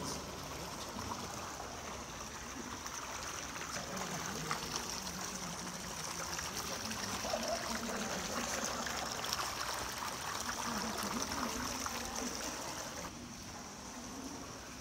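Steady trickling water with a fine crackle running through it, dropping to a quieter level about thirteen seconds in.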